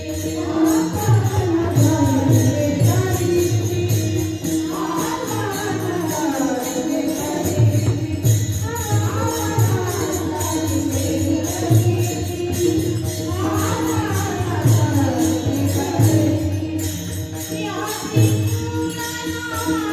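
Marathi kirtan music: voices singing a devotional melody in repeated falling phrases, with a steady held tone underneath. Small hand cymbals (taal) click in a regular rhythm over a steady drum beat.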